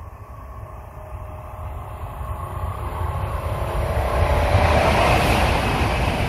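A train approaching along the line, its rumble and rail noise growing steadily louder and peaking about five seconds in.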